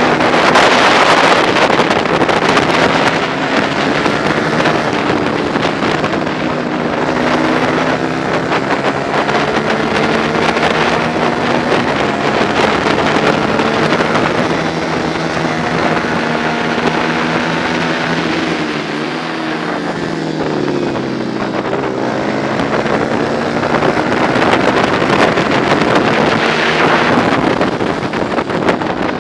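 Onboard sound of a 125 cc four-stroke racing motorcycle engine at race pace, its pitch climbing and falling as it is revved through the gears, dropping about two-thirds of the way through and then climbing again. Heavy wind noise on the bike-mounted microphone.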